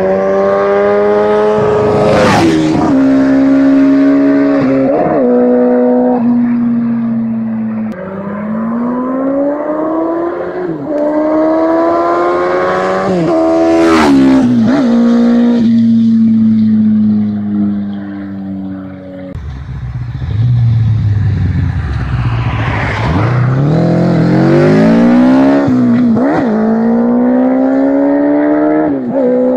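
Motorcycles accelerating hard, their engine pitch climbing and dropping sharply again and again as they shift up through the gears. Several flat-out pass-bys go close by, each with a sharp peak and then a falling pitch as the bike goes past.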